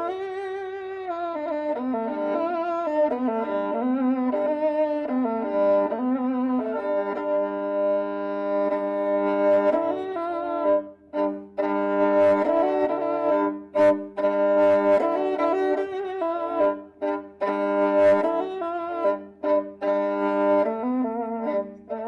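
Kyl-kobyz, the Kazakh two-stringed bowed fiddle, being played: a wavering melody over a low held note, then from about halfway quick, sharply broken bow strokes with short gaps between them.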